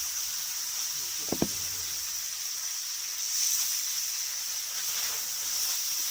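Meat sizzling in a hot iron frying pan: a steady hiss, with two sharp knocks about a second and a half in.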